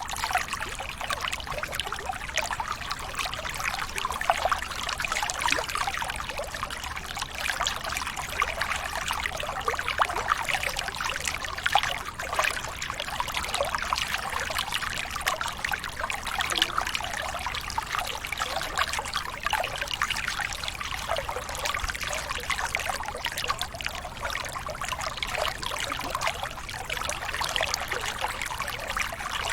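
Running water trickling and splashing steadily, with a constant rush.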